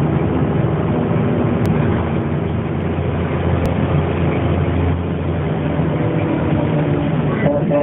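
1998 Dennis Dart single-deck bus running, a steady mix of engine and road noise. A low drone swells in the middle, and shortly before the end a clearer, higher whining tone sets in.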